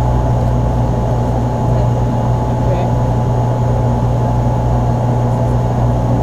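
Steady in-flight drone of a Dash 8-314's Pratt & Whitney Canada PW123 turboprops and propellers, heard from inside the aircraft: a constant low hum under an even rush, with a thin steady higher tone.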